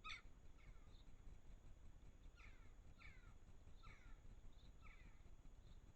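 Faint garden bird calls: a series of short, downward-sweeping chirps, with a few brief higher notes in between, coming at irregular intervals of about half a second to a second.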